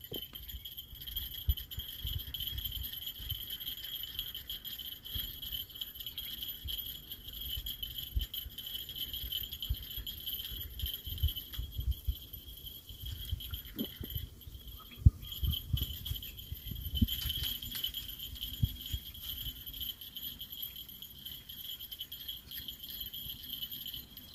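Insects keep up a continuous shrill buzz at two high pitches throughout. Under it runs an uneven low rumble of wind on the microphone, with a few faint clicks.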